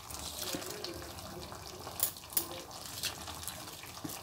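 Crab and brinjal curry simmering in an aluminium pot: a soft, even bubbling hiss broken by a few sharp pops around the middle.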